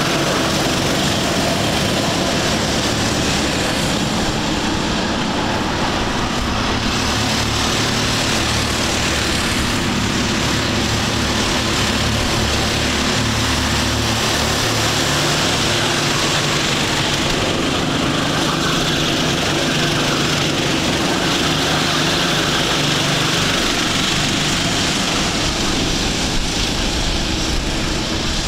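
Several Sodi rental go-kart engines racing past, their pitches shifting up and down as the karts accelerate and brake through the corners.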